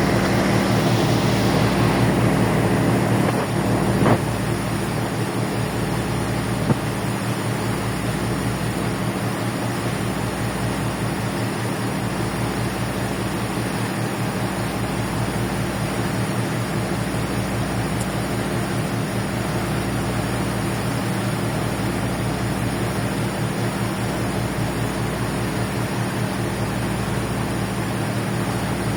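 A ferry's engines droning steadily, a low throbbing hum under an even rushing noise. There is a short knock about four seconds in and another just before seven seconds.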